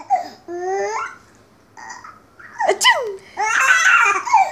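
Mother sneezing and a six-month-old baby laughing hard in bursts: a sudden burst with a falling pitch a little under three seconds in, then a long run of giggling laughter.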